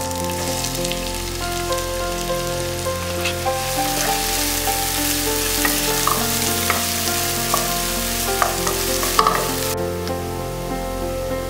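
Chopped onions sizzling in hot oil in a nonstick frying pan, stirred with a wooden spatula, with a few sharp clicks and scrapes against the pan. About ten seconds in, the sizzle abruptly drops to a quieter, duller hiss. Soft piano-like background music plays throughout.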